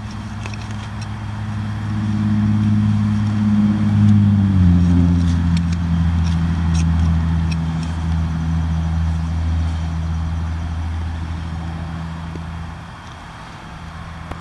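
A motor vehicle driving past: its engine hum grows louder, drops in pitch as it goes by about four and a half seconds in, then fades as it moves away.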